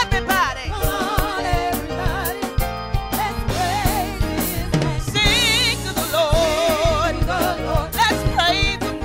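Gospel choir singing, led by a woman's voice on a microphone with wide vibrato, backed by drums keeping a steady beat.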